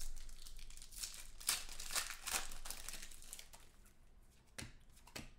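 Foil trading-card pack wrappers crinkling and tearing as they are ripped open by hand, then two light taps near the end.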